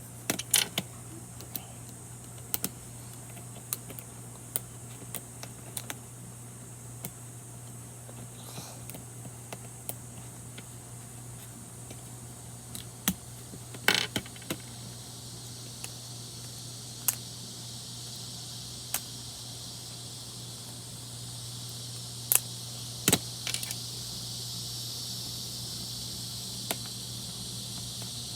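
Plastic Rubik's cube being worked by hand to loosen its tension: scattered sharp clicks and snaps at irregular intervals, bunched a little over halfway through, over a steady low hum.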